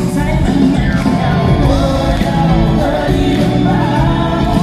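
Live concert music: a male singer's voice over a band and a string section. Heard from the seats of a large hall.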